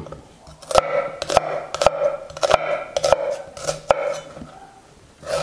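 Chef's knife dicing an onion on a wooden cutting board: a string of irregular knife strikes on the board, each with the crisp crunch of the onion layers being cut through.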